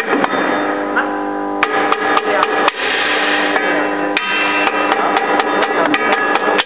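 Soft-faced mallet tapping on a Malmedie steel safety coupling to reset it after an overload trip: a string of sharp knocks, about four a second near the end. Background music plays under the knocks.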